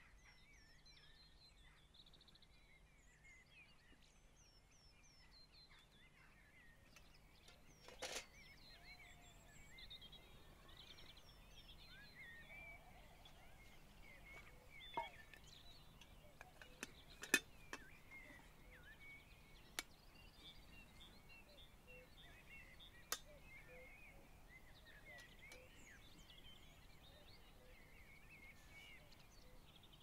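Many small birds chirping and singing throughout, faint. Several sharp metallic clinks are scattered through it, the loudest a cluster just past halfway, as the aluminium Trangia spirit stove, pan and kettle lid are handled.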